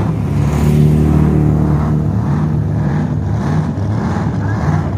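The Predator dragster's 8.6-litre V8 running at steady low revs, a deep engine note that holds its pitch.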